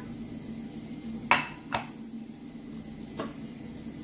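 Three sharp clinks of kitchenware, the first the loudest, two close together and a fainter one a second and a half later, over a steady low hum.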